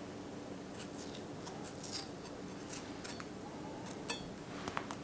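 Kitchen knife cutting the cores out of tomatoes on a plastic cutting board: faint cutting and scraping, with a few light clicks of the blade against the board near the end.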